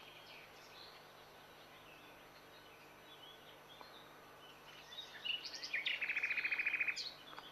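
Faint room noise, then about five seconds in a bird chirps several times and gives a fast high trill of rapid repeated notes for about two seconds.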